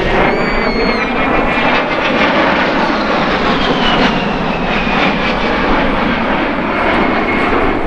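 A-10 Thunderbolt II's twin General Electric TF34 turbofans: a steady, loud jet roar as the aircraft flies by. A high whine slides slowly down in pitch through the second half.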